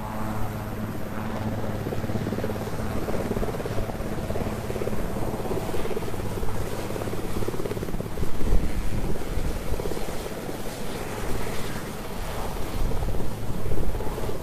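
Marine One, a Sikorsky VH-3D Sea King helicopter, lifting off and climbing away, its twin turbine engines and rotor running with a steady low drone. Gusts of rotor downwash buffet the microphone about halfway through and again near the end.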